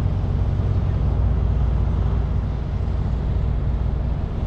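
Dodge Scat Pack's 392 HEMI V8 running as the car rolls slowly along, a steady low rumble mixed with road and wind noise.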